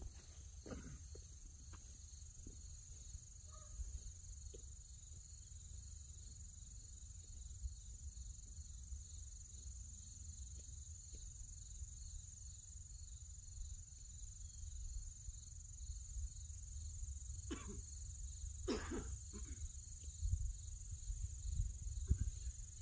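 Steady high-pitched chorus of crickets over a low wind rumble on the microphone. A few footsteps fade out about a second in, and two faint knocks come near the end.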